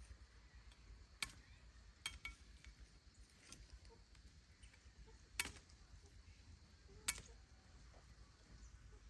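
Near-silent room tone with a few sharp, short clicks or taps, four of them clearer than the rest.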